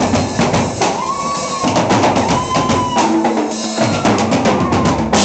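Drum kit played live, a busy beat of bass drum and snare strokes, with a high melody of gliding notes over it.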